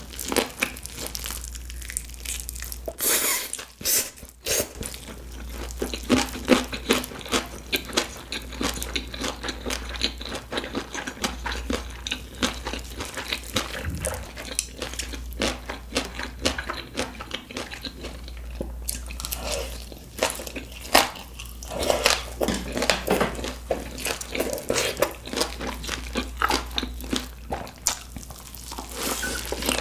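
Close-miked eating of original gimbap: biting and chewing, with many small crunches and moist crackles from the seaweed-wrapped rice roll and its crunchy fillings.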